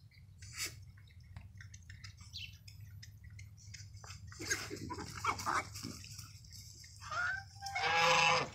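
Geese and piglets foraging in grass, with small crunching and rooting clicks. A few animal calls come about halfway, and a louder, harsh pitched call comes near the end.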